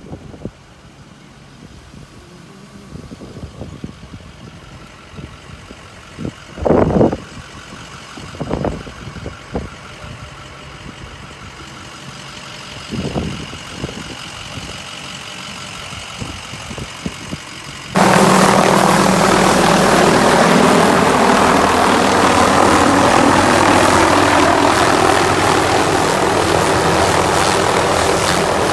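A small helicopter's engine and rotor running close by, a loud steady drone that starts suddenly about two-thirds of the way in. Before it there are quieter sounds broken by a few brief thumps.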